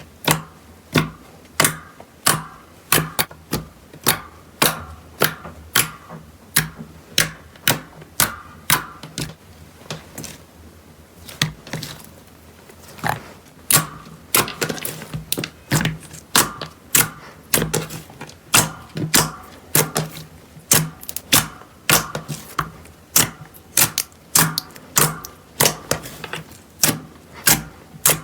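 Slime being pressed and squished by hand, making a run of sharp popping clicks as air pockets in it burst, roughly two a second, with a short pause a little over a third of the way through.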